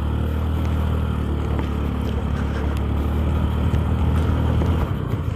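Honda Dio scooter engine running steadily while riding on a rough dirt road, a low even hum with a few faint knocks.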